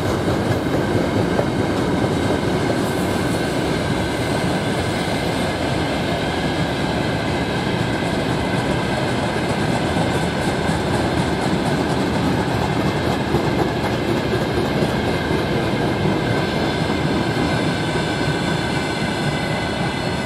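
Freight train of covered hopper wagons rolling past close by: a steady rumble of steel wheels on the rails, with a clickety-clack over the rail joints.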